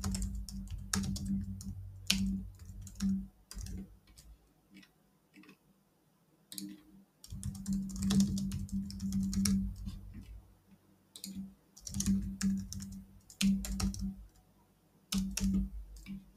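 Typing on a computer keyboard in several bursts, with short pauses between them.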